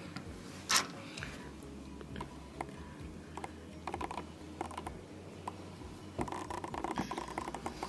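Toy minicars being handled on a tabletop: a scatter of light clicks and small rattles from the little cars and their wheels. There is a louder click about a second in and a busier patch of clicking near the end as one car is picked up and turned over.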